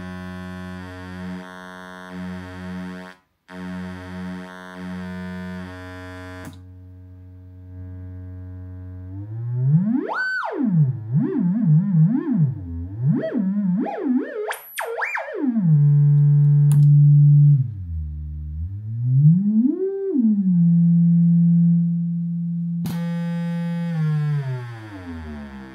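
LABOR synth's built-in analog VCO droning through a speaker as its pitch is swept by hand: a low buzzy tone that stutters on and off at first, then swoops up and down, highest about ten seconds in, and settles back to a steady low note. Its tone colour changes about six seconds in and again near the end as the waveform is switched.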